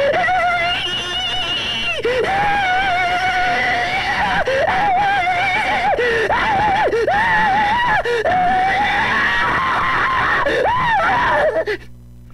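A cartoon character screaming at length: a string of long, wavering yells with a few breaks, over background music, dropping off just before the end.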